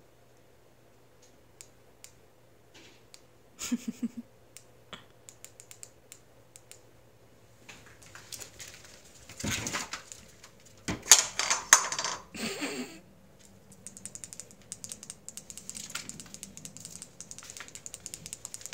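Cats' claws ticking and skittering on a hard wood-look floor as they chase a laser dot, in quick runs of small clicks. A louder spell of scrambling and rustling comes about halfway through.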